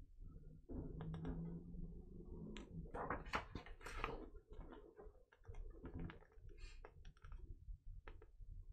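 A printed paper record insert being handled and turned over: faint rustling and crinkling with a run of small clicks, busiest in the middle.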